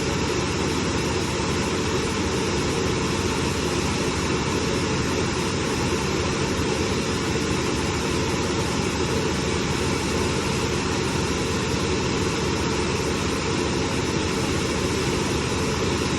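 Gladel washing machine on its high-speed spin, the drum turning with a loud, steady, unchanging noise.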